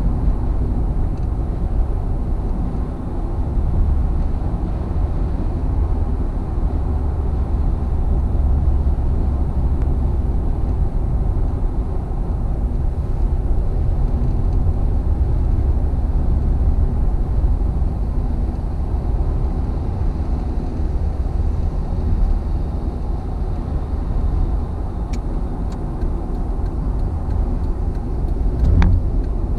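Steady low rumble of a car driving at highway speed, heard from inside the cabin: tyre, road and engine noise. There are a few faint ticks near the end and one short knock just before it finishes.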